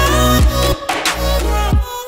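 Background music with deep bass notes that drop in pitch, under a sustained melody.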